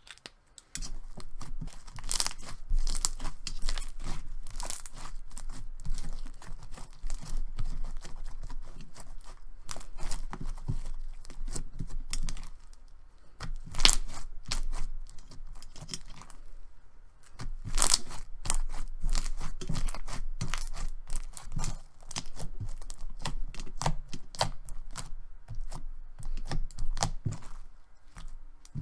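Thick and glossy slime being squished, stretched and folded by hand, making an irregular stream of sticky crackles, clicks and pops that starts about a second in.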